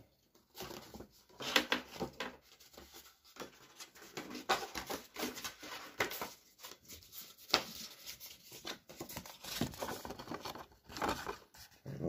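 Close handling noise from hands working a wire trace: irregular rustles, scrapes and small clicks.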